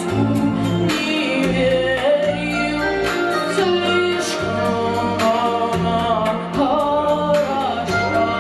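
A woman singing a pop song into a handheld microphone, over music with a steady beat.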